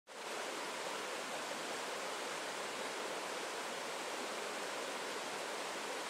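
Swift river rushing over rocks in white-water rapids: a steady, even rush of water.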